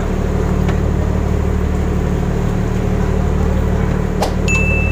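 Shrimp trawler's engine running with a steady deep hum. About four seconds in, a sharp knock, then a short high whistle held for under a second.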